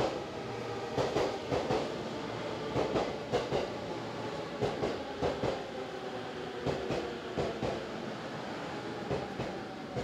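JR East E231-500 series commuter train pulling into the station, its wheels clacking in pairs over the rail joints about every two seconds, the gaps slowly lengthening as it slows. Under the clacks runs a steady rolling hum.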